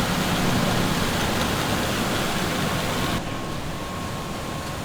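Steady hiss of background noise with a faint thin tone through it; about three seconds in, it cuts abruptly to a quieter, duller hiss.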